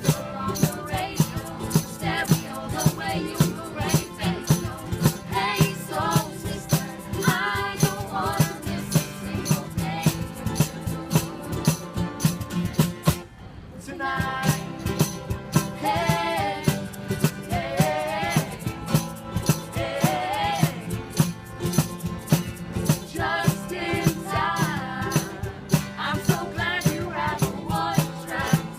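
Background music: a song with a singing voice over a steady beat with shaker-like percussion, briefly dropping away about halfway through.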